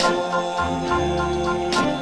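Music from a 1958 vocal-group pop record, between sung lines: held chords with two sharp drum hits, one at the start and one near the end.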